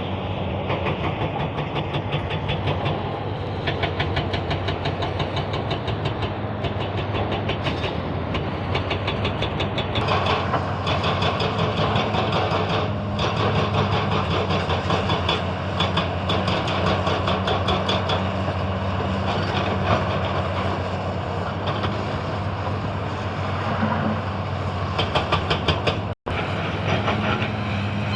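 Excavator's diesel engine running steadily under load, with a fast, continuous metallic clatter over it; the sound drops out for an instant near the end.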